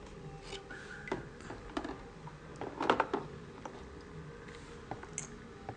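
Hand moving a floating fishing knife about in a plastic tub of water: small splashes and light clicks and knocks of the knife against the plastic, loudest in a quick cluster about halfway through.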